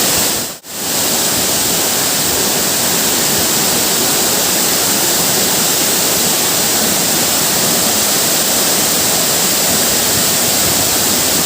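Loud, steady rushing of a large, tall waterfall, briefly dipping out about half a second in.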